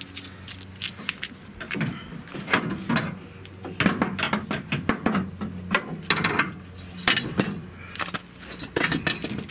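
Irregular metallic clanks, knocks and scrapes as a Toyota Tacoma's steel rear leaf spring pack is worked loose and pulled out from under the truck.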